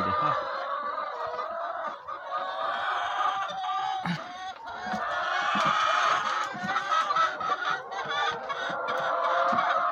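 A large flock of white laying hens clucking together in a steady, dense din of overlapping calls, with a few light knocks.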